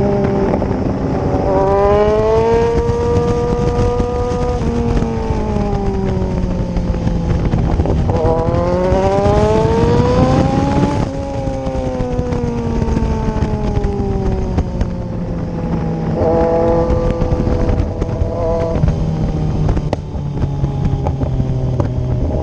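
Kawasaki Z1000's inline-four engine under way, pulling up in revs twice, dropping sharply about eleven seconds in and winding down before settling at a steady speed. Wind rush on the microphone runs under it.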